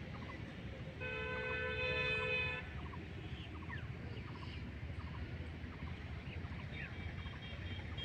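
A vehicle horn sounds one steady held note for about a second and a half, starting about a second in, over a steady low rumble, with short bird chirps. A higher, broken horn-like beeping starts near the end.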